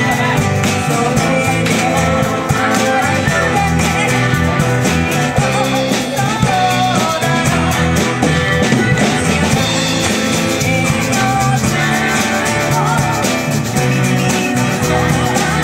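Live band performing a rock-style song: several voices sing together over acoustic guitar, electric bass, drums and keyboard.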